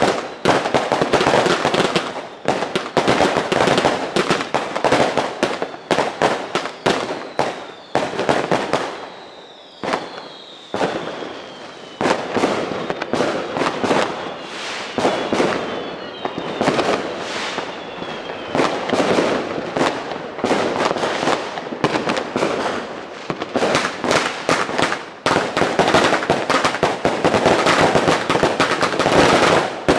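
Fireworks and firecrackers going off in a dense, almost unbroken barrage of cracks and bangs. About ten seconds in the barrage thins briefly, and a whistle falls slowly in pitch over several seconds.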